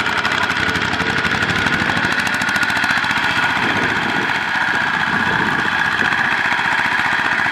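Kubota ZT120 single-cylinder diesel engine of a two-wheel walking tractor running steadily with a rapid knocking chug while hauling a trailer loaded with rice sacks.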